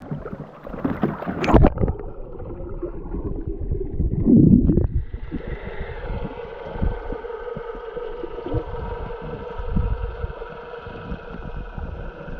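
Water sloshing and gurgling around an action camera at and below the surface, with a sharp splash about a second and a half in and a louder rushing churn around four seconds. From about five seconds a steady hum with several fixed tones runs under the water noise.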